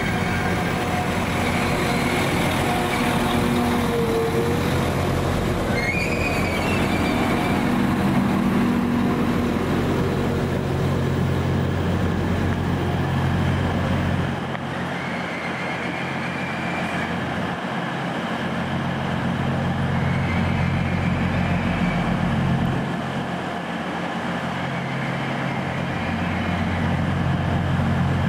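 Underfloor diesel engines of Northern class 195 multiple units running steadily, first as a train moves along the platform, then as a unit stands at the platform. A few brief high squeals and whines sound now and then.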